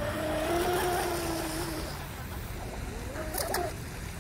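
Traxxas Velineon 380 brushless motor of a small RC mono boat whining as the boat runs at speed, the pitch holding steady at first and then rising and falling near the end. A couple of sharp clicks come about three and a half seconds in.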